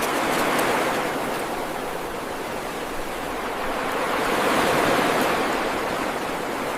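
Steady rushing water noise like surf or a stream, a continuous wash that swells a little and eases.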